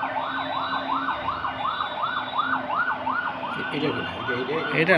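Motorcade escort siren wailing in a fast rising-and-falling cycle, about three sweeps a second, with a steady low hum beneath it and a brief louder burst near the end.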